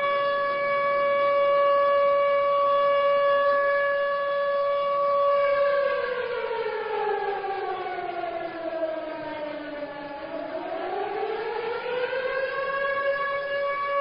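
Chinese civil air-defence siren sounding a steady tone. About six seconds in, its pitch slides down for several seconds, then climbs back to the steady tone near the end.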